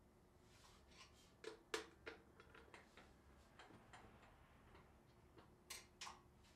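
Faint handling of a turned maple bowl: a few light knocks and taps as the wooden bowl is lifted and turned in the hands, with small scattered ticks between. The strongest taps come in pairs, one pair about a second and a half in and another near the end.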